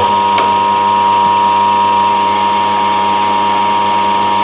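Small Clarke lathe taking a cut into a tube bender die with a radius form insert, the tool biting in as the cut starts and giving a loud, steady high-pitched squeal. About two seconds in, a higher hiss joins it.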